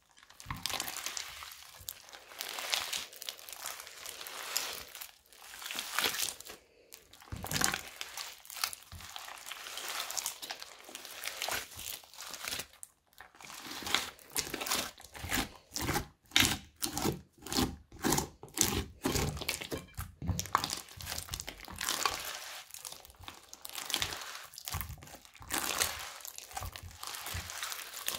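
Thick beaded crunchy slime being kneaded and stretched by hand: wet squishing with dense crackling and many small pops. A quicker, even run of squishes comes in from about halfway to two-thirds through.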